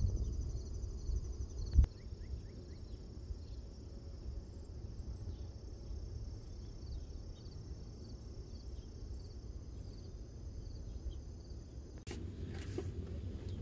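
Crickets trilling steadily and high-pitched over a low rumble. A sharp click comes about two seconds in, after which the trilling is thinner, and the background changes abruptly near the end.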